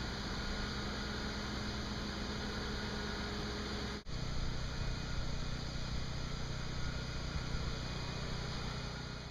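Steady low hum over a constant hiss. It breaks off for an instant about four seconds in, and the hum comes back lower in pitch.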